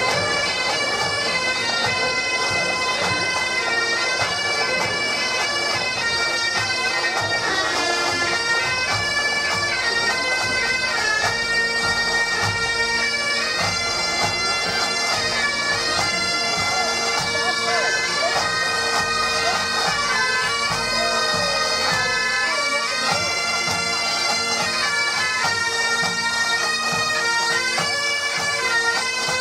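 A pipe band's Highland bagpipes playing a march tune, the melody stepping from note to note over a steady drone.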